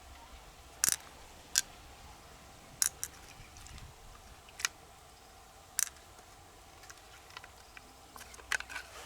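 Sharp clicks and clacks of pearl mussel shells being handled and opened with a blade, about eight irregular taps over a low steady hum.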